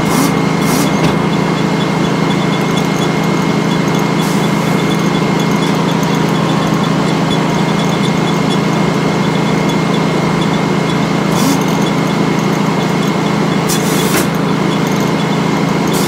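Circular sawmill running idle with no log in the cut: the large head saw blade spins freely and the belt conveyor turns, a steady mechanical hum with a thin high whine over it. A few light clicks sound near the end.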